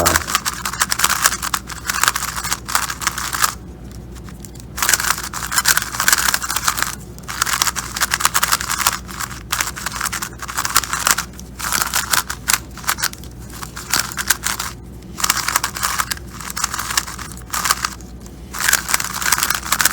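A new, factory-lubed X-Man Design magnetic 3x3 speed cube being turned quickly for the first time: rapid plastic clicking and clacking of the layers in runs, with a few short pauses.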